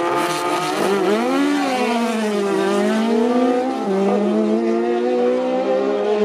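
Open-wheel single-seater race car engine running, its pitch swinging up and down as it pulls away, then dropping about four seconds in and holding steady.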